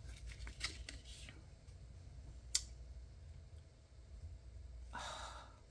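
Soft clicks and rustles of a plastic PET tape strip being handled and unrolled by hand. There is one sharp click about two and a half seconds in and a short rustle near the end, over a faint low hum.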